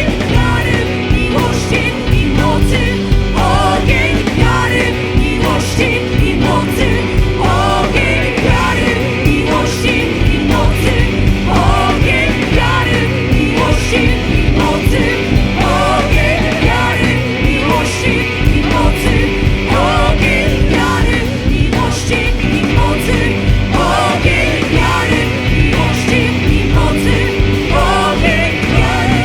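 Church worship band playing improvised worship music in a rock style: a sung melody with wavering, drawn-out notes over drums and sustained chords, with a steady beat.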